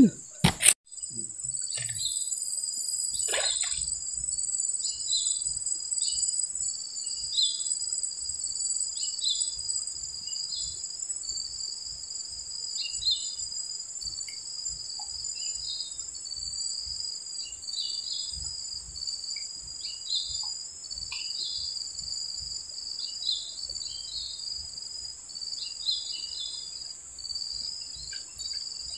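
Steady, high-pitched insect drone from crickets or cicadas, with many short chirps scattered throughout.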